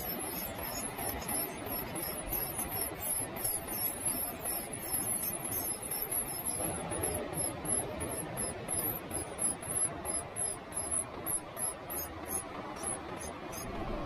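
Great tit nestlings begging: a rapid stream of very high, thin squeaking calls, continuous at first, then breaking into separate short calls that stop shortly before the end as the chicks settle after a feed.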